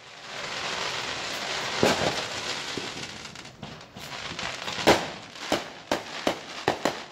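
Consumer aerial fireworks going off. There is a hiss of sparks rising for about three seconds, with one bang about two seconds in. About five seconds in comes a loud bang, then a quick run of sharp crackling pops.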